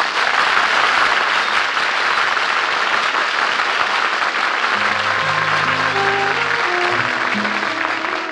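Studio audience applauding, with music coming in over the applause about halfway through.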